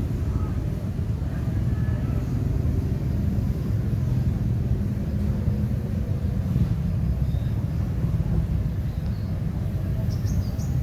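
A steady low rumble of vehicle engines running, with faint voices in the background.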